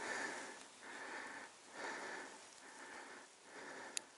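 A person breathing hard close to the microphone: quick, even breaths, a little over one a second. A sharp click comes near the end.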